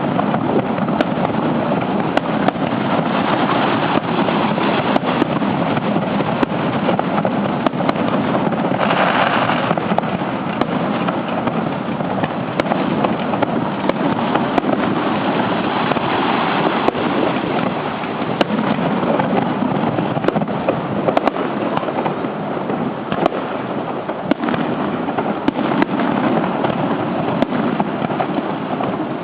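Fireworks display: a dense, continuous barrage of bursts with many sharp pops, loud throughout, with a brief louder burst about nine seconds in.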